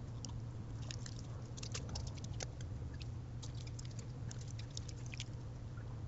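Raccoon working at a hanging bird feeder: irregular small clicks and crackles of claws and chewing on the feeder and seed, thickest in the middle, over a steady low hum.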